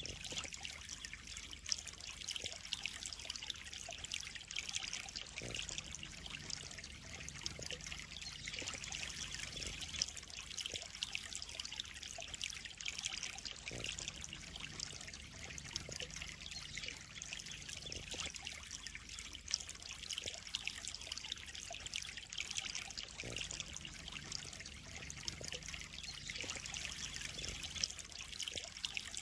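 Water trickling and splashing steadily into a koi pond, a continuous fine patter of droplets.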